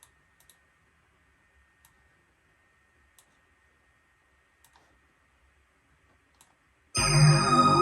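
A few faint, sparse clicks from the controls, then near the end a Korg Minilogue analogue synthesizer patch starts abruptly and loud: a bright, sustained sound made of many steady tones.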